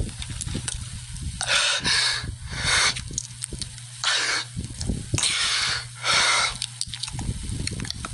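A person breathing hard and raggedly, as if in pain: harsh, hissing breaths of about half a second each, roughly one a second, over a steady low hum.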